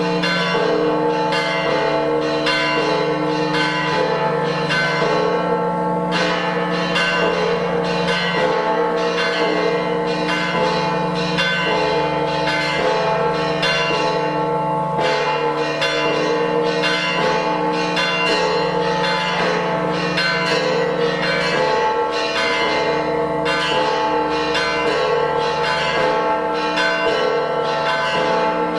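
Several church bells ringing continuously, their rapid strokes overlapping into a steady, loud peal.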